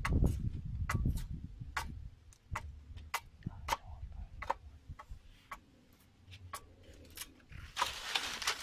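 Light, sharp clicks about twice a second over a low rumble, which is strong for the first couple of seconds and then fades. A hissing rustle rises near the end.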